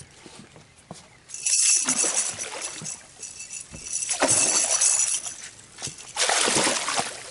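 Water splashing in three bursts as a hooked bull redfish thrashes at the surface beside the boat.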